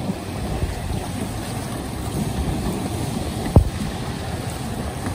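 Choppy river water washing and splashing against a grounded sailing yacht's hull and a stone breakwater, with wind buffeting the microphone. A single sharp thump about three and a half seconds in.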